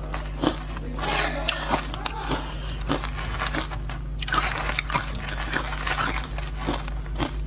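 Crushed ice coated in matcha powder being bitten and chewed close to the mouth: a fast, uneven run of sharp, icy crunches.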